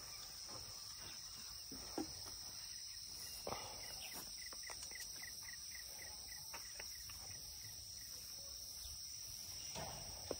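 Faint, steady, high-pitched insect chorus. About four seconds in, a short run of quick chirps comes at about four a second. A few soft knocks sound now and then.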